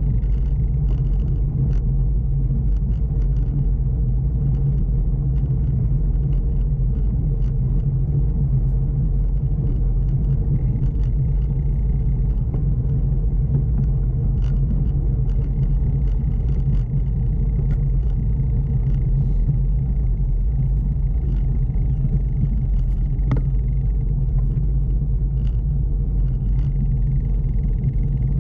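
Steady low rumble of a bicycle rolling along a wooden plank boardwalk, with faint ticks and rattles scattered throughout.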